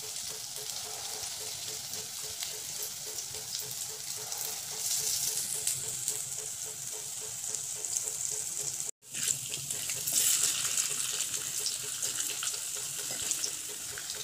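Dahi vadas, balls of urad and moong dal batter, sizzling in hot oil in an aluminium kadhai on low heat: a steady hiss with light crackling. The sound cuts out briefly about nine seconds in, and after that the sizzling is louder.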